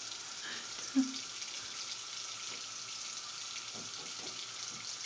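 Bathroom sink tap running steadily, an even hiss of water, with a brief voice sound about a second in.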